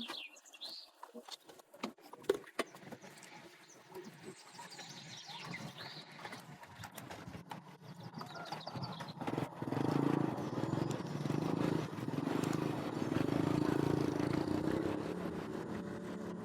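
A motor vehicle's engine running, faint at first and growing louder from about ten seconds in.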